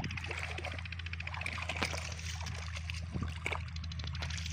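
Shallow muddy water sloshing and splashing lightly as hands grope through it, with scattered small splashes, over a steady low hum.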